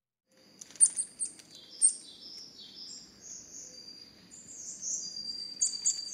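Small birds chirping and singing, with sharp calls about a second and two seconds in and a busier run of chirps near the end, over a steady thin high tone and a faint low hiss.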